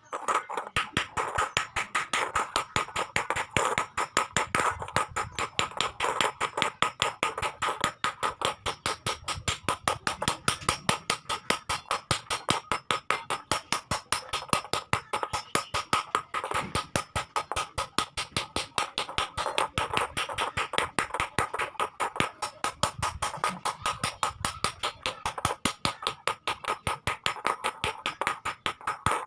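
Hammer beating iron in a fast, even run of strikes, each with a metallic ring, as the iron is shaped.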